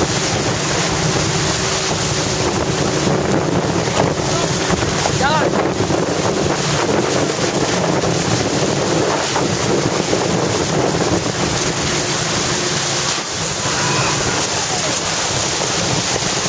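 Loud, steady wind buffeting the microphone over rushing, splashing water, from a camera riding low on a tube towed at speed behind a boat.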